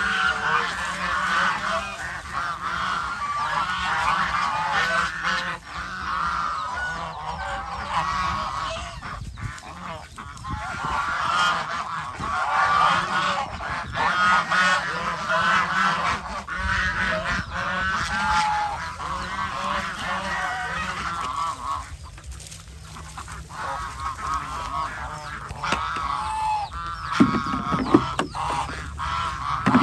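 A flock of domestic geese honking continuously, many calls overlapping, easing off briefly about three-quarters of the way through.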